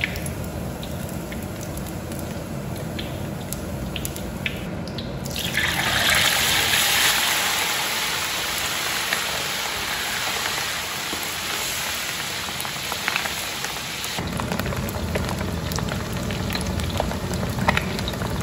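Pieces of marinated pig skin deep-frying in a wok of hot oil, a steady sizzle with small pops. About five seconds in, a ladleful of skin goes into the oil and it jumps to a loud hissing sizzle, then slowly settles. This is the first fry that sets the skin's shape before it is refried hot.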